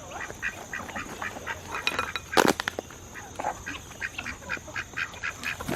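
Flock of poultry calling, many short calls overlapping at a few a second, with a brief loud clatter about two and a half seconds in.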